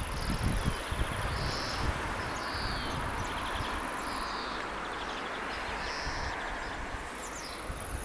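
Insects trilling, a steady high-pitched buzz that breaks off about four seconds in and comes back near seven seconds, with short chirps repeating underneath. A broad rush of wind runs beneath them, with gusts buffeting the microphone in the first second or so.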